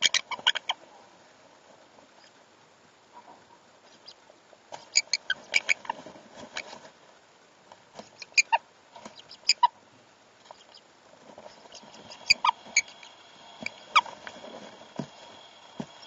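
A pair of sun conures mating, giving bursts of short, squeaky chirps and clicks with quiet pauses between them.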